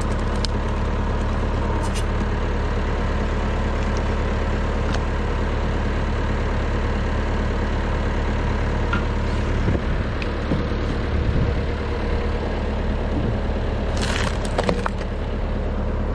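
Massey Ferguson 165 tractor engine running steadily, driving a hydraulic log splitter, with a few cracks and splintering sounds of firewood being split; the loudest crack comes about two seconds before the end.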